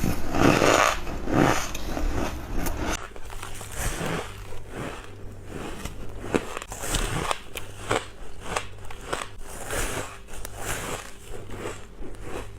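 Bites into squeaky ice, close up: a run of crisp crunches and cracks, the loudest in the first second and a half, then many smaller crackling bites. A faint steady low hum sits under the bites from about three seconds in.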